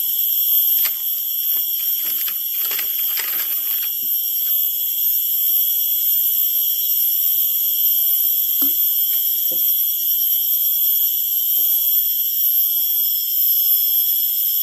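Loud, steady, high-pitched drone of a tropical forest insect chorus, holding several shrill tones at once, with a few soft knocks in the first few seconds and twice more near the middle.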